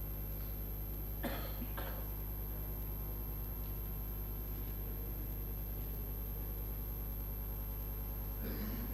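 Steady electrical hum with a thin high whine from the assembly's live audio feed while nobody is at the microphone, with faint brief sounds about a second in and near the end.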